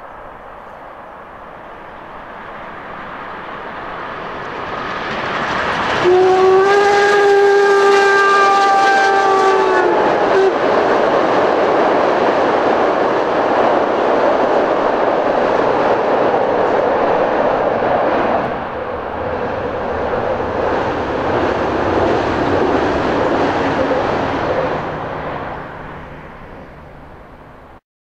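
A steam-hauled special train, led by the DR class 35.10 steam locomotive 35 1097, approaching and crossing a steel truss railway bridge, with one long whistle blast of about three and a half seconds, starting some six seconds in. The coaches then rumble steadily across the bridge, easing off and cutting off just before the end.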